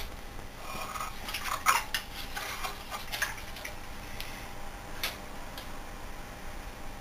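Light clicks and metallic taps at an irregular pace, the most distinct ones a little under two seconds in and about five seconds in. These come from hands handling small engine parts and tools on a bench during a teardown.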